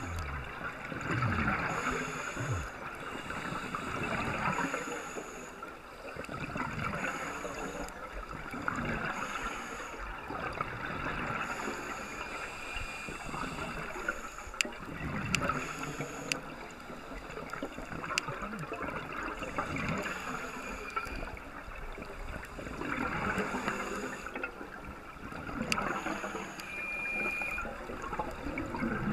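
Scuba breathing heard underwater: hissing breaths through a regulator recurring every couple of seconds, alternating with gurgling bursts of exhaled bubbles. A few sharp clicks come about halfway through.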